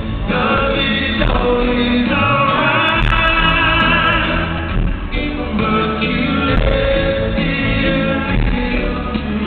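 Live band playing while a male lead singer sings into a microphone, heard from the audience.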